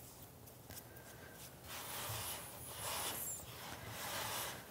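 Hands kneading crumbly durum wheat semolina pasta dough on a wooden board, with soft rubbing and scraping strokes about once a second that set in about one and a half seconds in.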